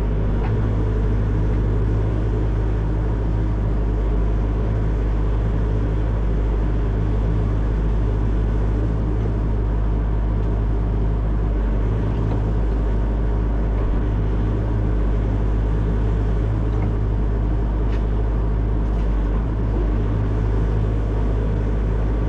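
Excavator's diesel engine running steadily at a constant speed, a deep even drone with no revving.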